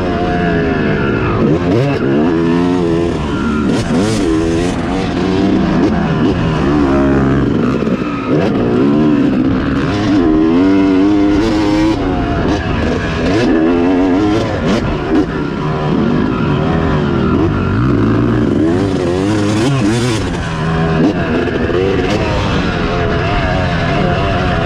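Yamaha YZ250's single-cylinder two-stroke engine, heard close up from on the bike, revving hard and dropping off again and again as the rider accelerates up the straights and jumps and shuts off into the landings and corners.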